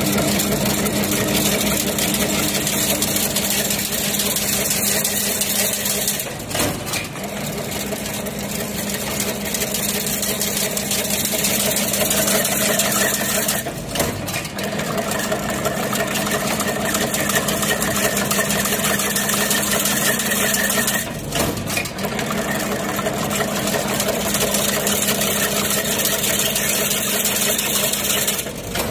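Automatic chain link fence machine starting up and running steadily with a loud mechanical hum, dipping briefly three times at roughly seven-second intervals.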